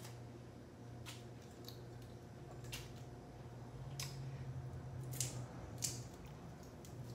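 Raw shrimp being peeled by hand: a handful of faint, short clicks and crackles of shell and legs being pulled off, over a low steady hum.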